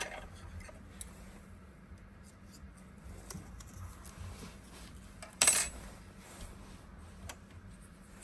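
Small clicks and taps of a CR2032 coin-cell battery and a plastic car key being handled, with one louder short clatter about five and a half seconds in.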